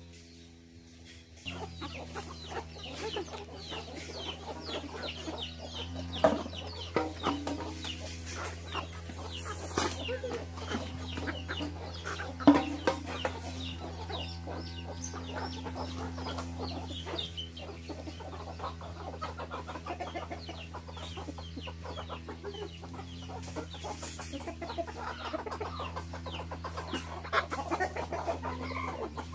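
A flock of chickens clucking, hens and roosters together. Two sharp knocks stand out, about six and twelve seconds in.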